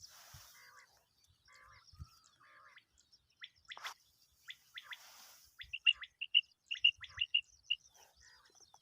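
Common quail calling: short, sharp notes in quick groups, loudest and fastest in the second half.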